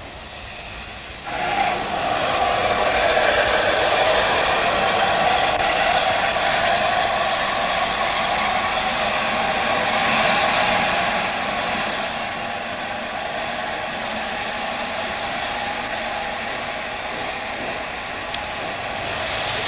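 Steam locomotive standing with a steady hiss of escaping steam, starting suddenly about a second in and easing a little about halfway through.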